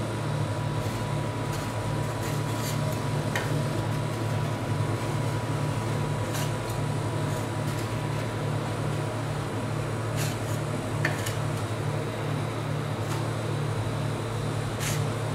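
Steady hum of a rolled-ice-cream cold plate's refrigeration unit. A few faint scrapes come from a metal spatula pushing along the frozen steel plate as it rolls up the ice cream sheet.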